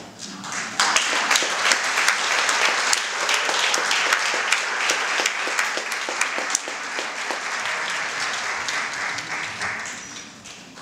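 Audience applauding, many hands clapping together; it starts about a second in and dies away near the end.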